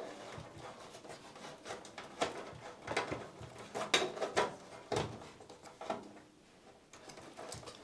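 Cables being handled and pushed through the back of a PC case: scattered rubbing, scraping and light clicks and knocks of cable, plastic and metal.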